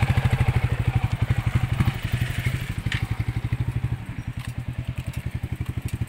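Royal Enfield Meteor 350's single-cylinder engine running at low revs, with an even thumping beat of roughly a dozen pulses a second; the beat gets a little softer about four seconds in.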